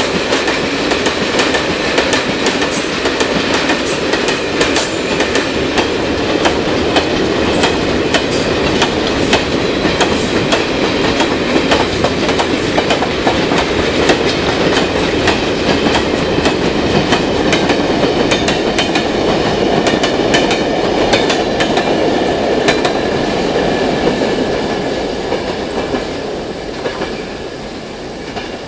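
Freight wagons rolling past: a steady rumble and clatter of wheels over the rail joints, with a thin steady wheel squeal, fading away about 24 seconds in as the last wagons go by.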